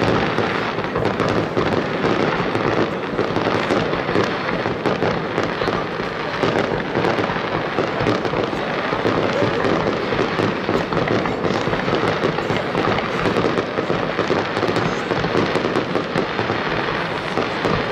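Aerial fireworks display: shells bursting in rapid succession with continuous crackling, the bangs running together into one dense, unbroken volley.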